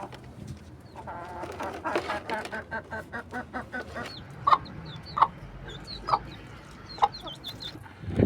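Chickens clucking: a quick run of rapid clucks, then four loud, sharp calls about a second apart, with faint high chirps in between.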